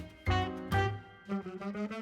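Background music: a jazzy instrumental track with saxophone-like melody notes over bass, in a steady rhythm.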